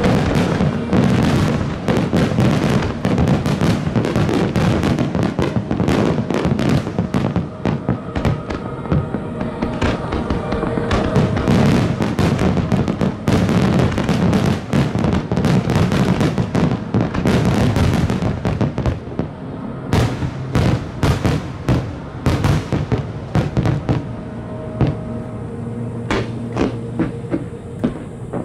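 Aerial fireworks bursting in a dense volley of bangs, crackles and low booms, thinning to more separate cracks near the end, with music playing underneath.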